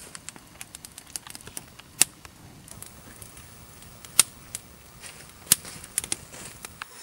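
Wood campfire burning, crackling with many small sharp pops over a steady faint hiss, with a few louder snaps about two, four and five and a half seconds in.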